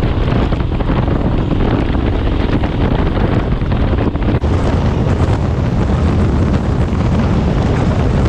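Wind buffeting the microphone of a moving motorcycle, with a Royal Enfield Himalayan's engine running underneath; loud and steady throughout.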